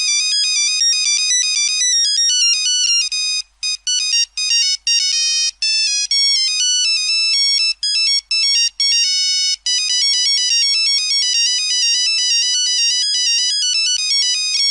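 Nokia mobile phone ringtone playing: a high-pitched synthesized melody of quick stepping notes. From about three to ten seconds in it turns choppy, with short notes broken by brief gaps.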